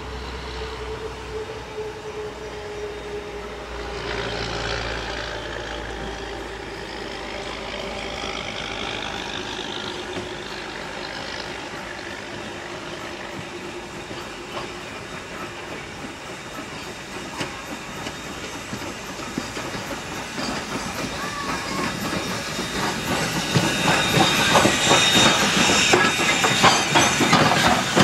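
Strasburg Rail Road No. 90, a 2-10-0 steam locomotive, drifting up the neighbouring track, getting steadily louder as it nears and passing close by near the end with rapid clanking of rods and wheels and a hiss of steam.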